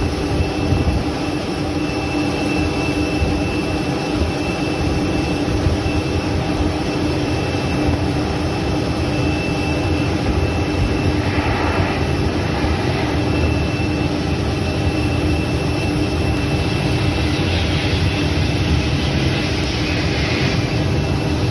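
Steady jet aircraft noise with a constant droning hum. A brighter rush swells briefly about halfway through and again for several seconds near the end as the Boeing 757-200F freighter comes in and lands.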